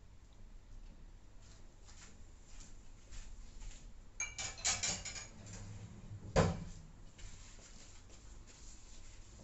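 Faint kitchen handling sounds: a few light clinks of dishes or utensils about four to five seconds in, then a single sharp knock about six seconds in, over a low steady hum.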